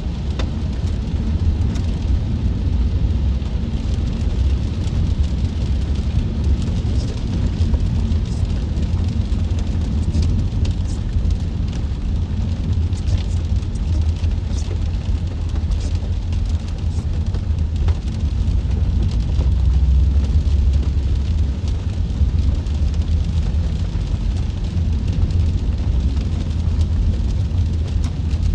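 Steady low road rumble of a car driving on a wet freeway, heard inside the cabin, with a faint hiss and scattered light ticks of rain above it.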